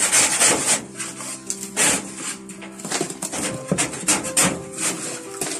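Quick, irregular scraping strokes of a hand brush sweeping burnt bread crumbs across the metal floor of a gas oven, several strokes a second.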